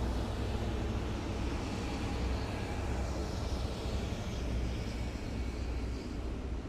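Heavy military vehicles driving past on a city road, a steady deep engine rumble with road noise.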